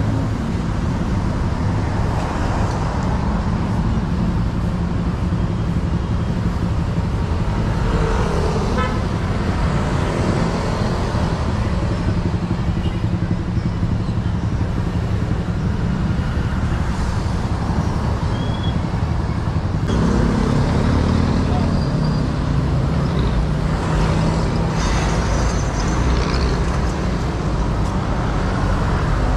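Busy city road traffic: car and motorcycle engines running past in a steady hum, with a vehicle horn tooting.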